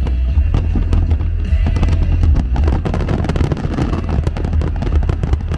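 Aerial fireworks bursting over the sea: a rapid string of bangs and crackles that gets denser about halfway through, as the shells build toward a full-sky volley.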